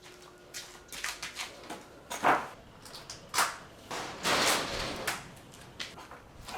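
A series of sharp knocks and clatters, the loudest a little past two seconds in, with a longer scraping rustle around the fourth second.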